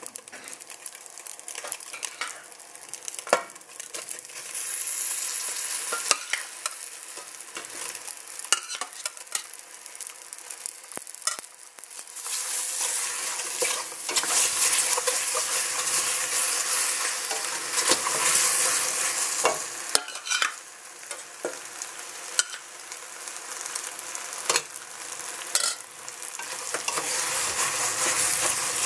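Rigatoni and vegetables sizzling in a hot stainless steel pot while being stirred with a wooden spatula, which knocks and scrapes against the pot again and again. The sizzling gets louder about twelve seconds in.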